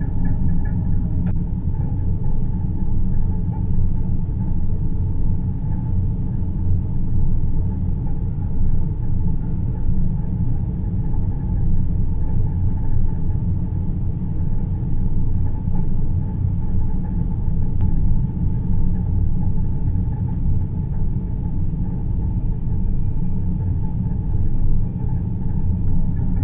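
Steady deep-space ambience: a dense, low rumbling drone with a fainter hum above it, unchanging throughout.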